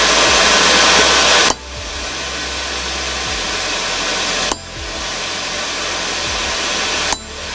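Forge air blower running steadily, forcing air through the fire. The noise drops off suddenly three times and builds back each time, the last two drops each starting with a short click.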